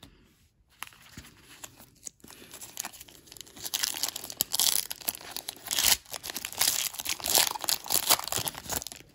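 Foil trading-card pack wrapper being torn open and crinkled by hand. There is faint handling for the first couple of seconds, then dense crackling, tearing and crinkling from about three seconds in until just before the end.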